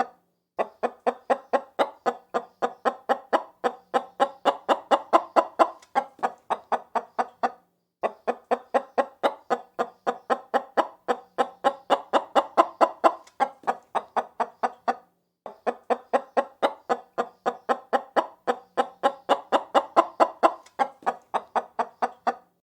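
A hen clucking in a fast, even series, about four clucks a second. It comes as three runs of about seven seconds with short breaks between them, the same recording played over again.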